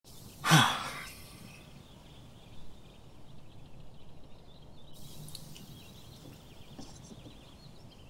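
A man's loud sigh about half a second in, falling in pitch, then faint room sound with a few faint high chirps in the second half.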